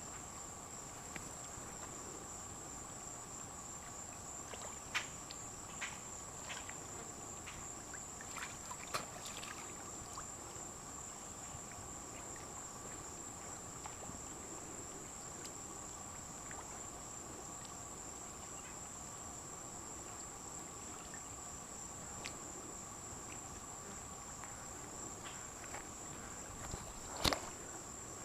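Steady, high-pitched chorus of insects such as crickets trilling without a break, with a fainter lower steady drone beneath and a few brief soft clicks or light splashes scattered through.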